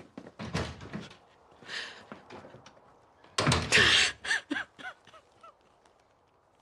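A door shutting about half a second in, then a woman sobbing: a sharp sobbing breath about three and a half seconds in, followed by several short wavering cries that fade away.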